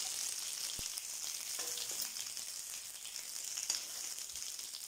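Whole small brinjals (eggplants) sizzling steadily in hot sesame oil in a kadai over a medium flame. A steel spatula nudges and turns them, giving a few faint clicks against the pan.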